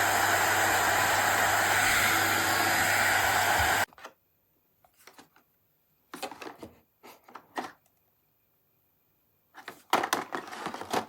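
VORAGA 1200 W hair dryer (hot-air brush) running with a steady rush of air, switched off suddenly about four seconds in. It is followed by a few clicks and knocks from handling the dryer, with a cluster near the end.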